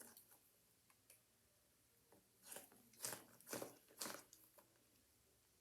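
Handheld fidget toy being worked: a few faint ticks, then four short crunchy clicks about half a second apart around the middle.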